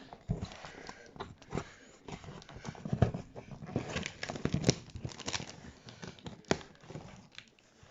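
Cardboard shipping box being opened and handled: irregular knocks and scrapes with crinkling of cardboard and packaging.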